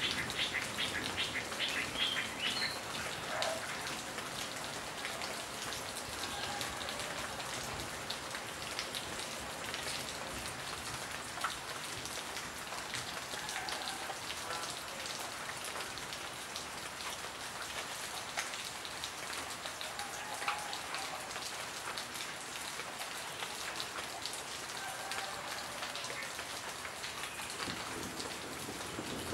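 Steady rain falling on foliage, an even patter with an occasional louder drop. A bird chirps rapidly in the first few seconds.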